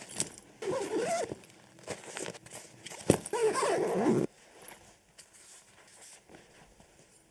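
Two short animal cries with a wavering, gliding pitch, about three seconds apart, the second ending abruptly, with a sharp click just before it.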